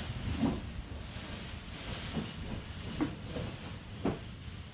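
Storm-force wind blowing hard against the house with rain on the windows, heard from indoors as a steady rushing hiss, with a few short knocks.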